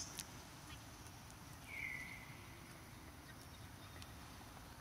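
A single short, high-pitched animal call about two seconds in, over a faint steady outdoor background.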